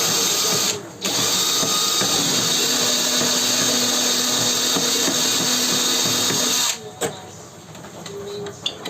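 Power tool motor running steadily at high speed, pausing once for a moment about a second in and cutting off about seven seconds in. A knock and a few light clicks of handling follow.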